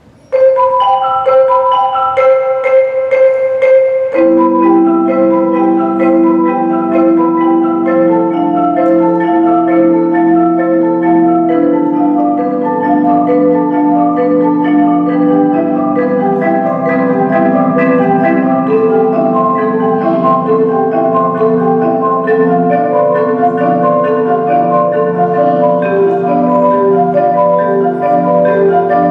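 Mallet percussion ensemble of marimbas, xylophone and vibraphone playing a four-mallet chord exercise. Higher bars start alone, and lower notes join about four seconds in.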